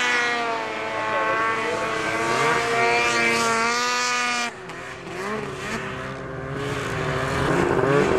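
Snowmobile engines running and revving, their pitch rising and falling. About halfway through the sound drops suddenly to a quieter engine, which climbs in pitch and loudness toward the end.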